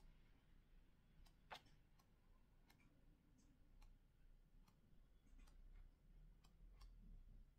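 Near silence: room tone with scattered faint clicks and ticks. One slightly louder click comes about a second and a half in.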